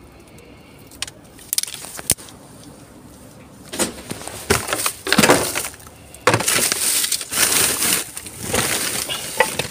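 Hands rummaging through discarded items in a bin: plastic bags crinkling and hard objects clinking. A few light clicks come first, then several loud bouts of rustling and knocking from about four seconds in.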